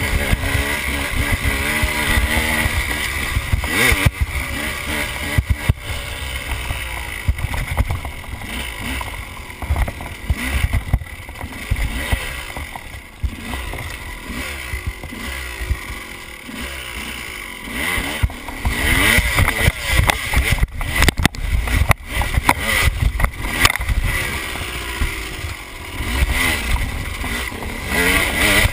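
KTM enduro dirt bike engine revving up and down repeatedly as it is ridden over rough ground. Knocks and rattles come through as the bike jolts over bumps.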